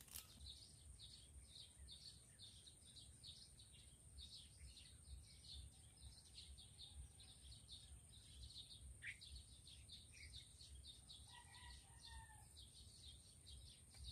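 Faint rural outdoor ambience: a high chirping repeated about three times a second over a steady, very high-pitched whine, with low wind rumble and a brief faint call near the end.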